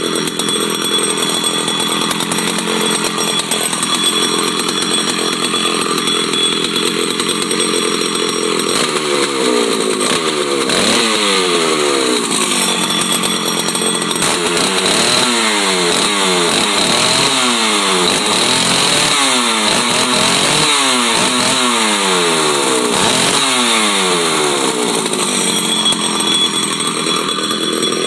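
1977 McCulloch Super Pro 125C chainsaw's single-cylinder two-stroke engine running just after a cold start. It runs at a steady speed, then from about a third of the way in it is revved over and over, the pitch jumping up and falling back each time, then it settles back to a steady run near the end.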